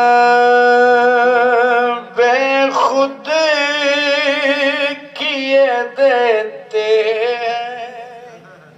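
A man singing a devotional naat through a microphone and loudspeakers: one long held note for about two seconds, then wavering, ornamented phrases with short breaks, fading away near the end.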